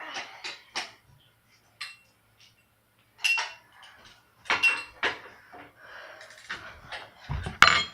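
Metal tools and BMX bike parts being handled, a series of short clinks and clanks with pauses between them and one loud clank near the end.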